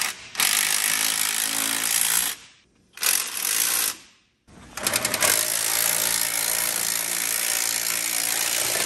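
Impact wrench hammering in three runs, about two seconds, then one second, then about four seconds, as it drives home the bolts that mount a new PSC steering box to the truck frame.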